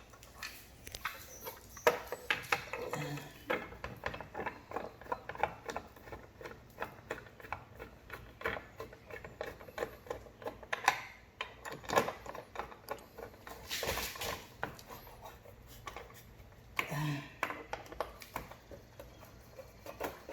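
Plastic body panel of a Can-Am Spyder RT being handled and pressed onto its clips: irregular clicks, taps and knocks of hard plastic, a few of them louder snaps.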